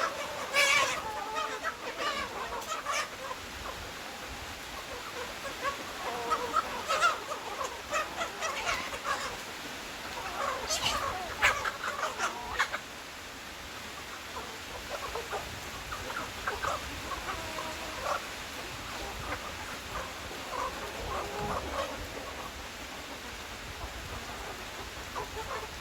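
A flock of chickens clucking continuously, short overlapping calls, with a few louder, sharper squawks standing out.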